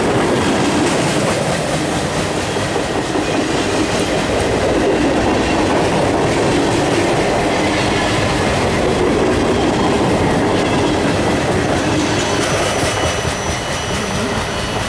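Freight train cars rolling past close by, the wheels clattering steadily over the rails. The noise eases a little near the end as the last cars pass.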